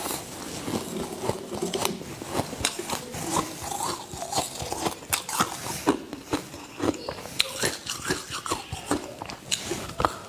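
Ice being bitten and chewed close to the microphone: a continuous run of irregular, sharp crunches.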